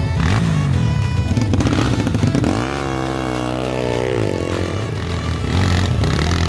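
Off-road trail motorcycle engine running and revving, its pitch wavering up and down for a second or two midway, with music playing underneath.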